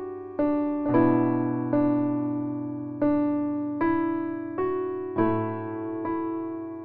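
Slow background piano music: single notes struck about one every second, each ringing out and fading, with lower bass notes under some of them.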